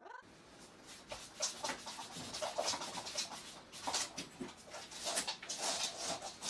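A dog making a run of quick, irregular breathy sounds.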